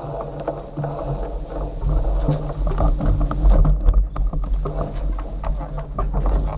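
A sailboat under way: water rushing and splashing against the hull, with an irregular patter of small slaps over a steady low rumble that swells about two seconds in.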